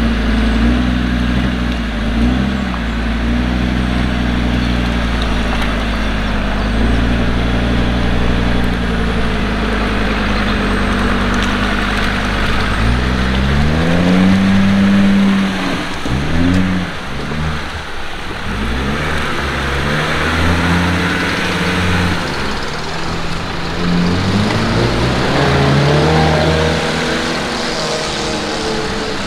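Land Rover Defender engine running steadily under load, then revving up and down several times from about halfway through, with more rising revs near the end.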